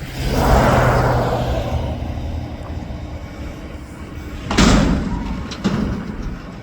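Mack McNeilus front-loader garbage truck at work: a steady engine hum with a rushing hiss for the first few seconds, then a loud bang about four and a half seconds in and a lighter knock a second later, typical of a dumpster being banged and dropped by the lift arms.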